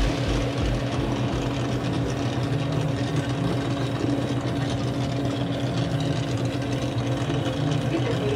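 Brazing torch burning steadily on copper tubing while a joint on a new evaporator coil is brazed, over a steady low mechanical hum.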